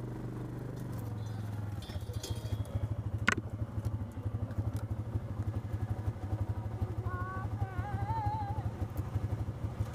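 Side-by-side utility vehicle's engine running steadily, then pulling with a rapid, even low pulsing from about two seconds in as the vehicle drives over a wooded trail. A single sharp click about three seconds in.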